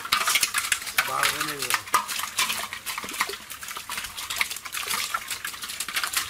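Live shrimp flicking and splashing in shallow water in a net while hands sort through them: a dense, continuous crackle of small wet splashes and clicks.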